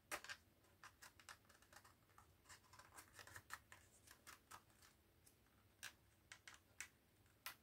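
Faint, irregular small clicks and scratches of a fingernail working along the seam of a plastic toy drone's body shell, prising at the snap-on top cover.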